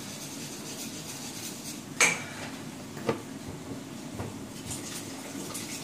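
Dishes and cutlery clinking in a kitchen: one sharp, ringing clink about two seconds in, then two lighter knocks about a second apart, over steady low background noise.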